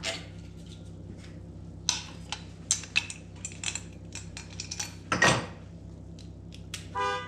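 Metal tools and parts clinking and knocking as a belt tensioner and idler pulleys are handled, a string of short clicks with a louder scraping rattle about five seconds in.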